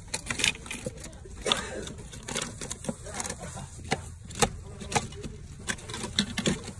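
Store background: a steady low hum with many short, sharp clicks and knocks scattered through it, and faint voices.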